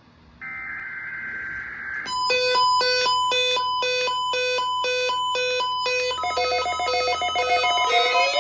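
Emergency alert tones on a weather radio broadcast. A short buzzing digital data burst, the SAME header, ends about two seconds in. Electronic alert beeping follows, alternating between two pitches about twice a second, and switches to a different two-tone beep pattern about six seconds in.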